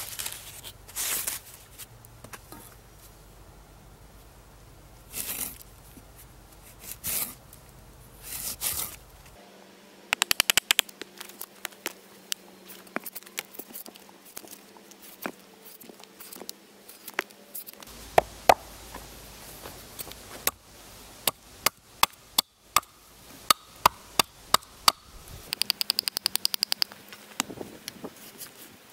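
A drawknife pulled along a maple log, shaving off bark. There are four scraping strokes in the first nine seconds, then runs of sharp crackling and snapping as the bark and wood peel away.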